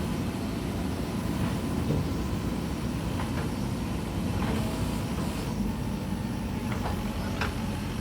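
Diesel engine of a Mahindra backhoe loader running steadily at work, with a few faint short knocks over it.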